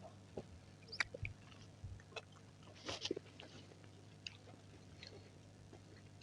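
Close-miked chewing of fruit: scattered soft, wet clicks and crunches, with a small cluster about three seconds in.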